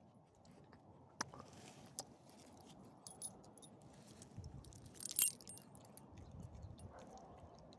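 Faint rustling with a few light clicks, then a brief metallic jingle about five seconds in, like small metal pieces shaken together.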